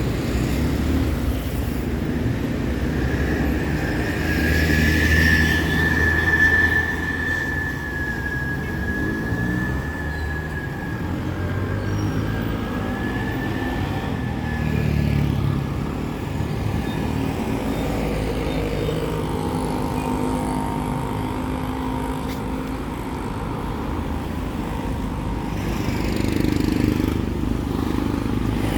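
Town street traffic: vehicle engines running and passing close by, with a thin, steady high whine lasting through much of the first half.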